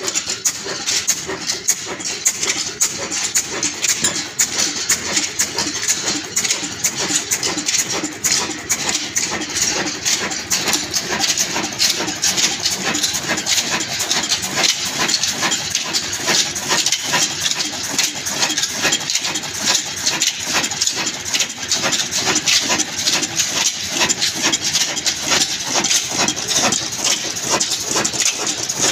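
Old black stationary diesel engine running steadily, with a rapid, even knocking beat.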